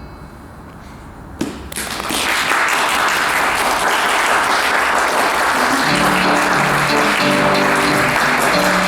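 The last chord of the accompaniment dies away, then audience applause breaks out about two seconds in and carries on steadily. About six seconds in, instrumental notes start up again under the clapping.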